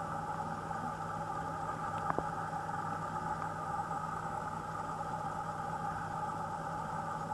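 Steady mechanical hum: a low drone with a higher, unchanging whine above it. One short click about two seconds in.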